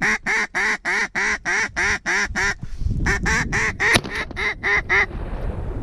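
Mallard duck call blown in two fast runs of evenly spaced quacks, about four a second, with a short break between them: a hunter calling to incoming mallards. A sharp click sounds about four seconds in.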